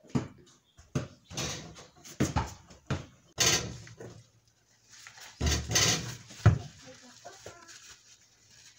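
Irregular clicks, knocks and rustling from hands working at a car's oil-pan drain bolt under the car, with a rag being wiped around it. There are a few louder scuffs about a third of the way in and again past the middle.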